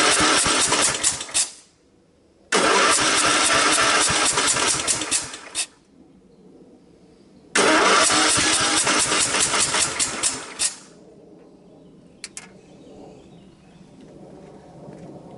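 Craftsman LTX1000 lawn tractor's 18 hp Kohler OHV engine cranking on its electric starter without catching, in three bursts of about three seconds each with short pauses between them. A single click follows near the end. The engine turns over on weak compression, which the owner takes for a blown head gasket.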